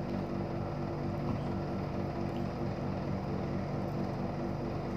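Steady low mechanical hum of a small motor running.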